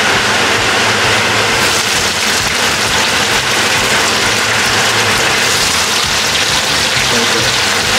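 Kitchen range-hood extractor fan running with a steady loud whoosh. Partway through, the sizzle of dried anchovies frying in hot oil joins it.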